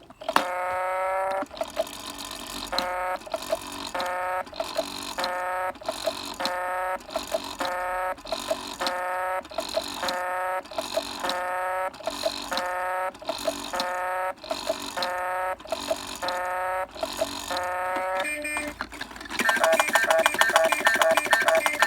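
Fisher-Price Laugh & Learn steering wheel toy playing electronic tones through its small speaker: a short pitched phrase repeating over and over, changing to a busier tune about nineteen seconds in. Kind of loud.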